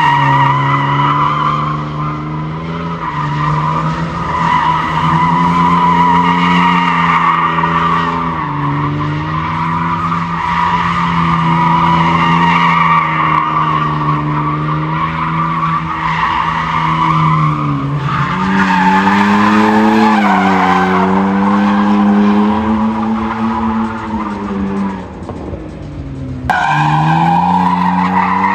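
BMW E90 3 Series drifting: the engine held at high revs, rising and falling with the throttle, under a continuous loud tyre squeal. The sound changes abruptly twice, about two-thirds of the way in and near the end.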